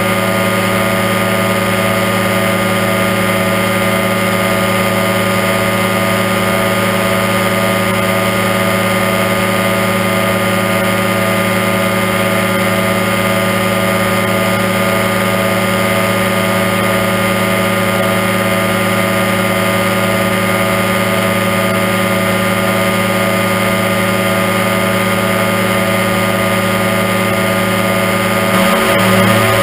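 Aerochute powered parachute microlight's engine and propeller running steadily in cruising flight, a loud constant drone. Near the end the pitch wavers briefly and the sound swells a little.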